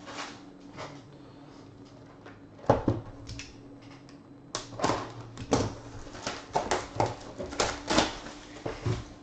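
A single sharp knock, then the cellophane shrink-wrap on a sealed trading-card box being torn open with its red tear strip, crinkling and crackling in a quick irregular run of sharp rustles.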